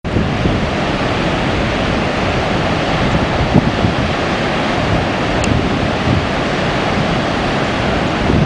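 Rough high-tide surf breaking along the beach, with wind buffeting the microphone.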